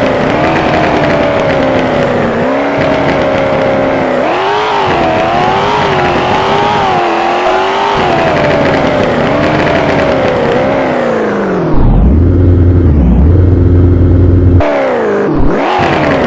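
Maserati Levante Trofeo's twin-turbo V8 running under load, its note sliding up and down as the revs rise and fall. About twelve seconds in, a loud low rumble takes over for a few seconds, then the revs climb again near the end.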